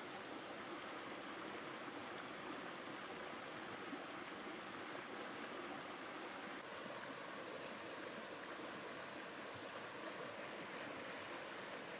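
Faint, steady rushing background noise with no distinct events in it.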